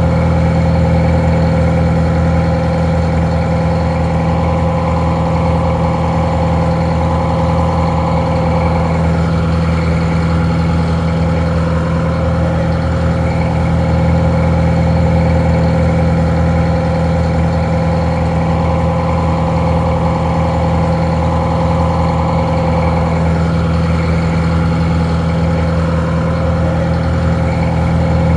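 Detroit Diesel 4-71 four-cylinder two-stroke diesel engine idling steadily, with an even low drone and a steady higher tone above it.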